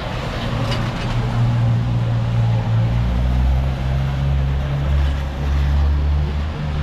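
Street traffic: a motor vehicle's engine running close by with a steady low hum that deepens about halfway through, over the hiss of a wet city street.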